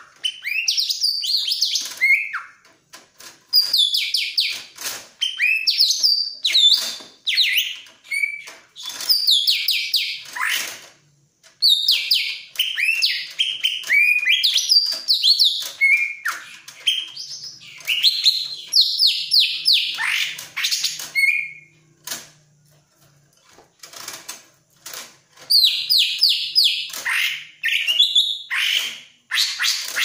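Greater green leafbird (cucak ijo) singing in rapid bursts of high, sweeping and falling chirps and whistles, with a short lull a little past the middle. It is a bird in breeding condition, eager to mate.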